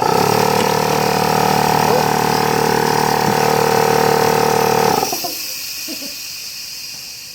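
A loud, steady machine-like hum with hiss starts suddenly and cuts off about five seconds in, leaving a fading hiss.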